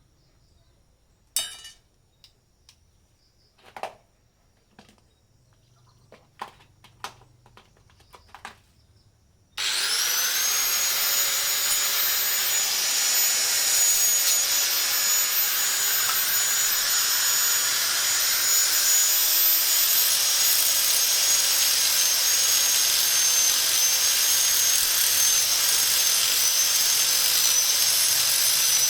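Scattered light clicks and knocks, then about ten seconds in an angle grinder starts up with a quick rising whine and runs steadily at a high pitch. Its pitch dips slightly now and then, as a tool's does under load.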